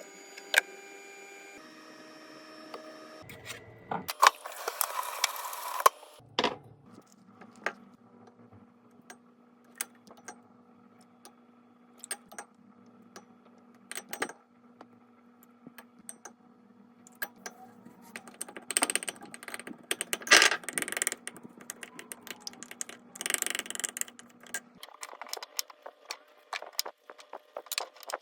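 Kitchen food-prep sounds: scattered clicks and clinks of utensils and dishes, with a few short bursts of hiss along the way.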